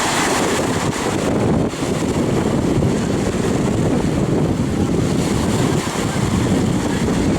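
Wind buffeting a handheld camcorder's microphone at the beach: a loud, steady, dense rumble.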